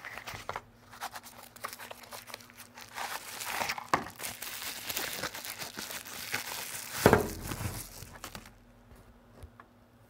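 Bubble wrap crinkling and rustling as a folding knife is handled and unwrapped from it, along with handling of its cardboard box. One sharp knock about seven seconds in is the loudest sound.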